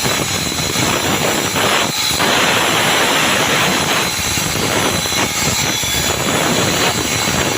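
Concrete-cutting saw running through a concrete slab: a loud, continuous grinding noise with a high whine, swelling for a couple of seconds about two seconds in.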